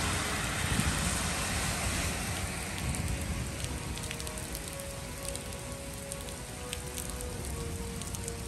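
Heavy rain falling on a wet street and pavement: a steady hiss with many individual drops ticking close by. A car's tyres swish over the wet road in the first couple of seconds, then fade.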